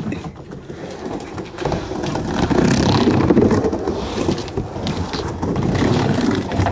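Skateboard wheels rolling over a wooden pump track's ramps, a steady rumble that grows louder about two seconds in.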